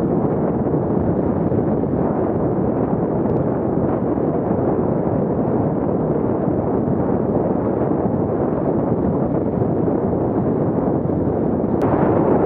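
Steady rushing wind buffeting an action camera's microphone as a fat bike rolls fast over packed snow, growing a little louder near the end.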